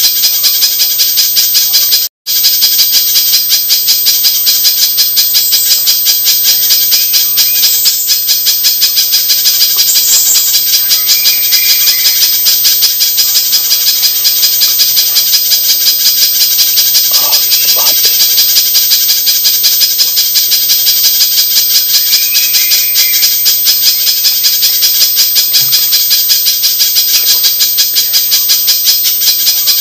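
Spiderhunter (pijantung) lure-call recording: a loud, rapid, unbroken high-pitched chattering trill, cut off by a brief dropout about two seconds in.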